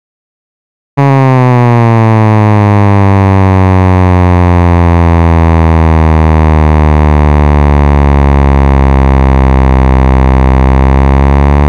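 Data sonification of a sprinter's acceleration over a 100 m dash: a loud synthesized buzzing tone that starts suddenly about a second in and slowly falls in pitch.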